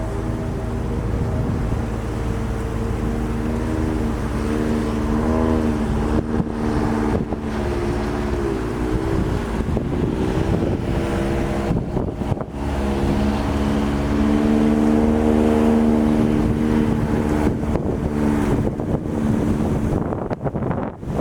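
A river barge's engine running steadily, a low humming drone that wavers in pitch now and then, with wind rumbling on the microphone.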